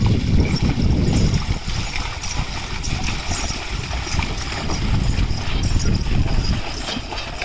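Two bullocks' hooves squelching and splashing through the flooded mud of a paddy field while they haul a loaded cart, with water sloshing around the cart's wheels.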